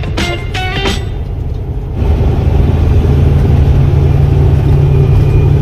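Semi-truck's diesel engine running steadily, with road noise, heard from inside the cab; it cuts in loudly about two seconds in. Before that, guitar music ends.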